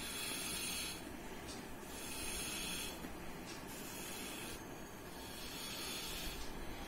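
Breath blown through the mouth of a cut-off plastic bottle into a sock soaked in soap solution, pushing out bubble foam: a series of hissing puffs, roughly one a second.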